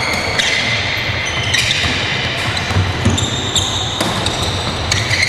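Handball players' ball bouncing and striking hands and the floor in an echoing sports hall: several sharp knocks roughly a second apart over a steady hall din.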